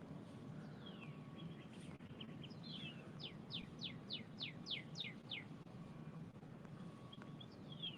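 A songbird singing faintly: a few falling whistled notes, then a run of about nine quick down-slurred whistles in the middle, and another short phrase near the end.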